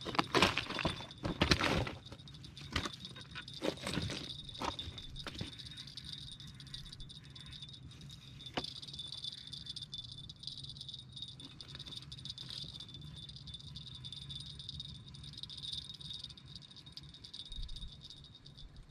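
Footsteps crunching and clattering on loose shoreline rocks through the first five seconds or so. After that comes a steady chorus of night insects with a constant high trill, over a faint low hum.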